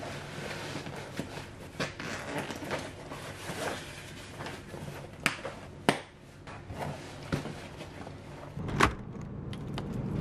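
A canvas backpack being handled and packed: fabric rustling, zips and buckles clicking, with a few sharp knocks. Near the end, keys jangle as a key goes into a door lock.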